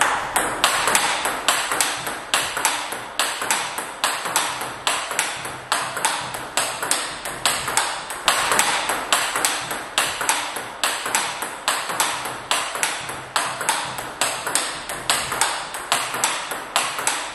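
Table tennis rally: the ball strikes a Tibhar Nuytinck blade (five-ply wood with two Hybrid ZC layers) and the opponent's bat, bouncing on the table in between. The strikes make a steady, unbroken string of sharp, evenly spaced ticks, about two to three a second.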